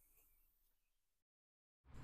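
Near silence: faint room tone that drops out entirely to dead silence for about half a second, a little over a second in, at an edit cut.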